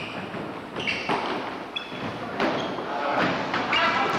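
Basketball game play on a wooden gym floor: the ball thudding and bouncing, with short high squeaks of shoes on the floor and players calling out.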